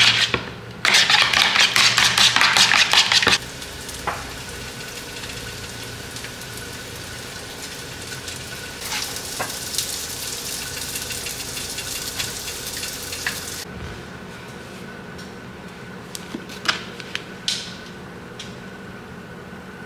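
A fork whisking eggs in a bowl, a fast clatter of strokes for about two and a half seconds. Later, food sizzling in frying pans for about five seconds. A few light utensil clicks follow near the end.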